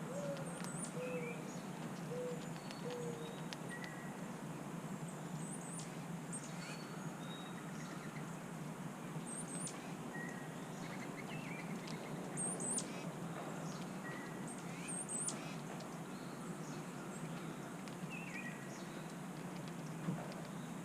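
Small songbirds calling outdoors: scattered short, high chips and chirps throughout, with a few lower, hooting notes in the first few seconds, over a steady low hum.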